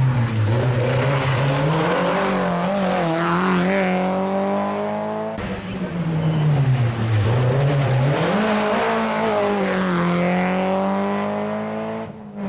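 Peugeot 306 S16 rally car's four-cylinder engine, heard twice: each time the revs drop as it slows for a corner, then climb steadily as it accelerates away. The sound breaks off abruptly about five seconds in, where the footage cuts.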